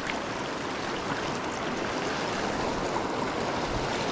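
Steady rush of flowing river water from a small mountain stream.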